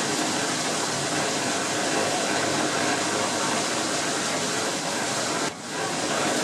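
Machinery of a water-powered single-blade frame sawmill running: a dense, steady rumble and rush from the water-wheel drive and the log carriage. It drops out briefly about five and a half seconds in.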